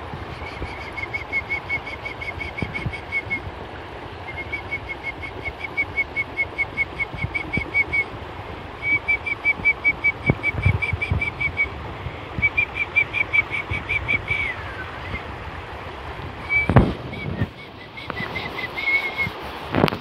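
Rushing stream water over rocks, with a bird repeating runs of fast high whistled notes, about six a second, each run lasting a few seconds, one ending in a falling glide. A sharp thump about three-quarters of the way through.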